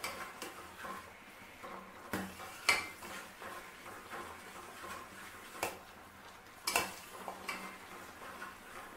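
A spoon stirring sugar syrup in a stainless-steel pot, scraping round the inside and now and then striking the side with several sharp clinks.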